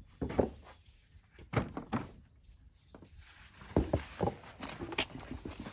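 A large lugged tractor tire thudding as it is rolled out over a wooden doorsill and onto concrete: several heavy thumps in clusters, about a third of a second in, near two seconds and around four seconds.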